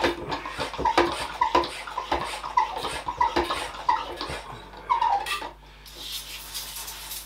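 Hand-pump pressure sprayer being pumped up: a squeak and a click on each stroke of the plunger, roughly two a second, for about five seconds. Then a steady hiss of water spraying from the wand.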